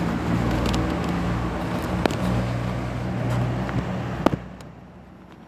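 A motor vehicle's engine running steadily nearby, with a sharp click about two seconds in and a louder one just past four seconds. The engine sound then fades away over the last second.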